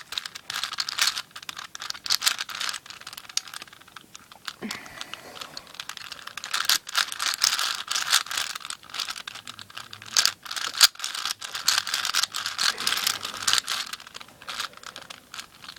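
Plastic layers of a 4x4 speed cube being turned by hand: a dense, irregular run of quick clicks and clacks, with a short lull about four seconds in.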